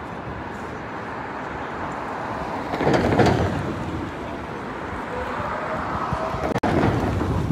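City street traffic noise, with a vehicle passing close about three seconds in, and a second swell near the end. The sound cuts out for an instant shortly before the end.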